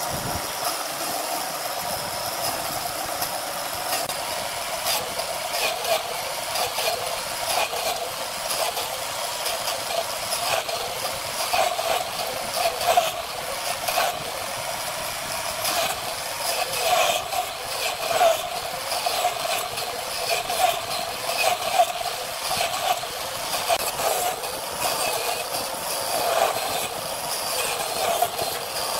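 Wood lathe running while a turning tool cuts into a rough, out-of-round charred log, with a steady motor hum and irregular sharp knocks and scraping as the tool bites the uneven surface.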